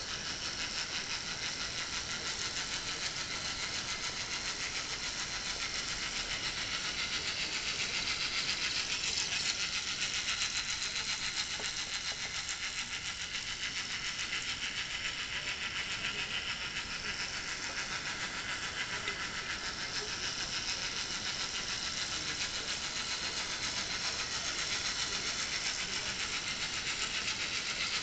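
Early-1960s Playcraft electric model tank locomotive running round the track with a train of freight cars, making a steady, rapid rattling transmission noise that comes from the gearbox in front of its motor.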